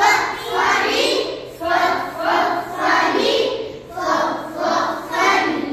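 A group of young children chanting phonic letter sounds together in a steady rhythm, about six short chanted bursts roughly a second apart.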